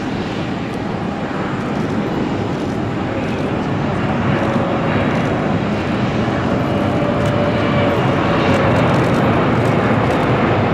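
Jet airliner's engines roaring steadily, growing slowly louder, with a faint whining tone over the noise.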